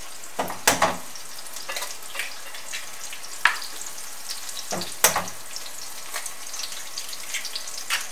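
Fresh porcini (Boletus edulis) mushrooms sizzling steadily in a frying pan over high heat. A few sharp knocks and taps come through, about four times, as eggs are cracked.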